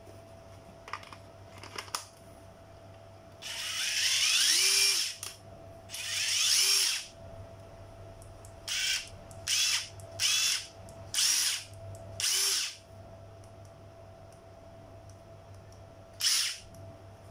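Used cordless drill-driver run free with no load in trigger bursts: two longer runs, then five short blips and one more near the end, the motor whine rising each time it spins up. Two small clicks come before the first run.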